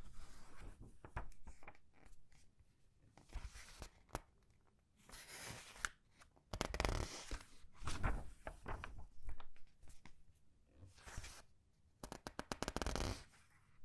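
Comic book pages being turned and squeezed by hand: crinkly paper rustling and crackling in bursts every second or two, with short pauses between.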